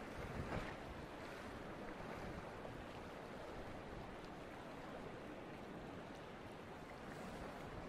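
Steady wash of choppy sea water in a harbour, with a low rumble of wind on the microphone.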